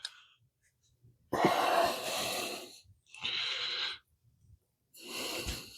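A person breathing out heavily, three long breaths with quiet gaps between them.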